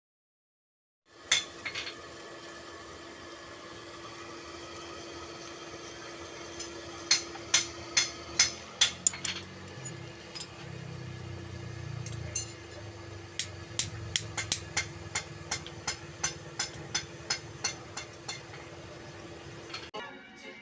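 Hammer blows ringing on a steel anvil while a bolo knife's handle fittings are driven on: a cluster of sharp metal strikes, then a steady run of strikes a bit over two a second, over a steady low hum.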